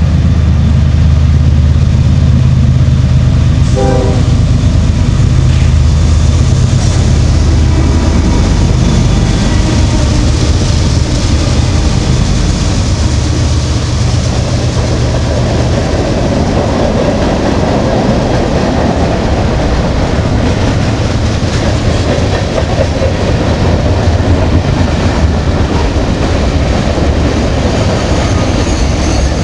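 CSX freight train passing close by: its diesel locomotives running under load for roughly the first fifteen seconds, with a short horn-like tone about four seconds in, then the freight cars rolling past with steady wheel noise.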